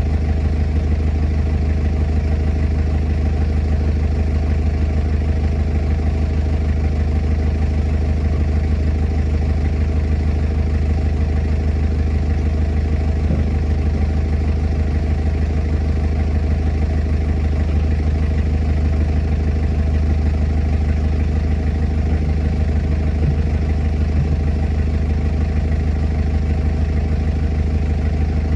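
Heavy diesel engine idling steadily at an unchanging speed.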